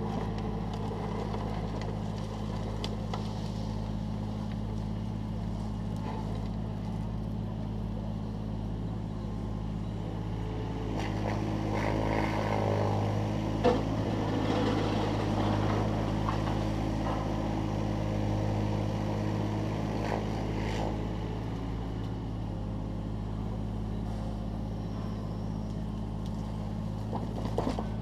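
Takeuchi TB216 mini excavator's diesel engine running steadily. It grows louder and busier for about ten seconds in the middle, with one sharp knock.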